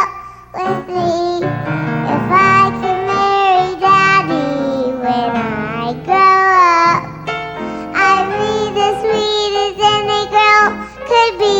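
A high, child-like voice singing a melody over music, with notes gliding up and down and some held notes.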